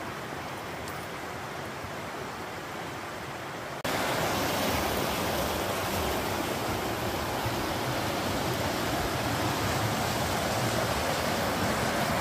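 Rushing river water tumbling over rocks and small rapids, a steady rush that gets louder about four seconds in.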